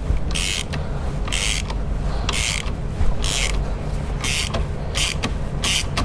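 Hand ratchet and socket loosening the seat belt buckle's mounting bolt: a short burst of pawl clicking on each return stroke, about one stroke a second.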